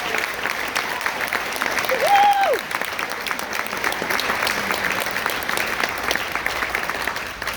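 Audience applauding, many hands clapping steadily, with one short whoop about two seconds in; the clapping dies down near the end.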